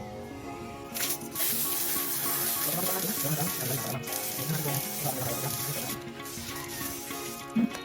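Hissing spray in long bursts, starting about a second in, breaking briefly near the middle and stopping shortly before the end, as parts are sprayed clean during a bicycle overhaul. Background music plays under it.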